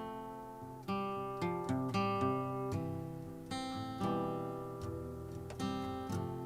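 Acoustic guitar playing an instrumental passage of a folk song: picked notes and strummed chords, each ringing out and fading before the next.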